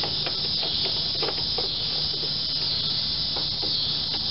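Cicadas singing in the trees: a steady high-pitched buzz throughout, with a few faint light clicks from hand tools working on the air cleaner.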